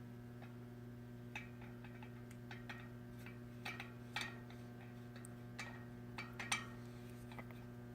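Scattered small metallic clicks and taps, about a dozen at uneven spacing with the loudest about six and a half seconds in, as a threaded part of an Easton Circuit Velomax hub is handled and screwed back in by hand, over a steady low electrical hum.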